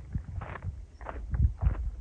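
Footsteps crunching on loose volcanic gravel and stones: a hiker in trail shoes walking at a steady pace, several steps with a low thud to each.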